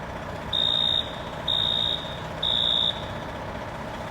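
School fire alarm sounding its evacuation signal: three high-pitched half-second beeps about a second apart, the temporal-three pattern, which then pauses before repeating.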